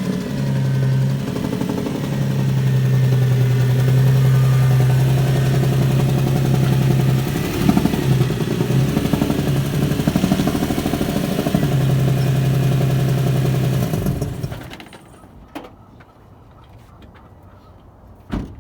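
Infiniti G35's 3.5-litre V6 running with a modified header exhaust that the owner says is leaking badly. The pitch wavers briefly about halfway through, and the engine is shut off about 14 seconds in. After that come a few faint knocks and a thump near the end.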